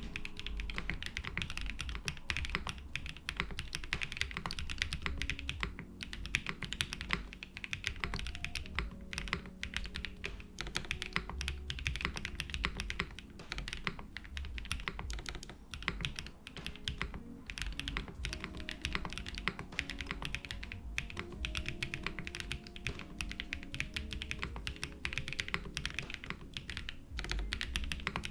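Continuous fast typing on a custom mechanical keyboard with lubed JWK Endless Summer linear switches, a polycarbonate plate with foam, and GMK keycaps: a steady stream of keystroke clacks. Soft background music plays underneath.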